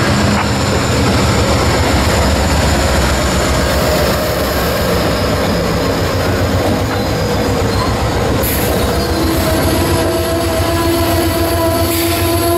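Amtrak P42DC diesel locomotive and its passenger coaches rolling slowly past at close range, with steady wheel rumble and clatter. From about two-thirds of the way in, a steady high-pitched squeal joins and grows stronger as the train brakes into the station.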